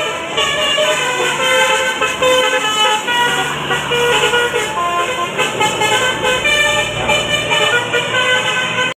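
Bus basuri telolet horn playing a fast melody of short, loud honked notes, changing pitch several times a second. The sound cuts off abruptly at the end.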